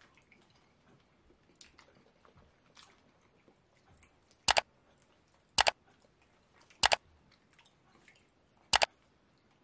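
Four sharp mouse-click sound effects, each a quick double click, spaced about a second or two apart, from an on-screen like-and-subscribe button animation. Beneath them, faint eating sounds of fingers in slimy soup and chewing.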